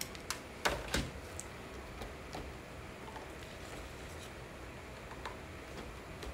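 Light plastic clicks and taps from handling a refillable ink cartridge and a priming syringe: a few sharp clicks in the first second, the loudest about a second in, then scattered faint ticks over a steady low room hum.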